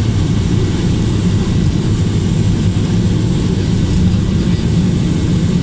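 Cessna 208B Grand Caravan heard from inside the cabin on its landing roll: a loud, steady drone from its single PT6A turboprop engine and propeller, with a deep low hum underneath.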